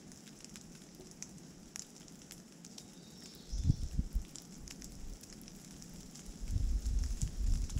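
Rain dripping and pattering in woodland, with scattered drops ticking close by. Wind buffets the microphone in low rumbling gusts about three and a half seconds in and again near the end.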